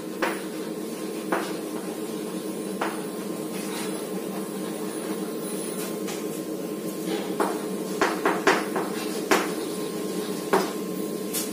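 Chalk tapping and scratching on a chalkboard as a line of text is written, with sharp taps scattered through and coming thicker in the second half, over a steady low hum.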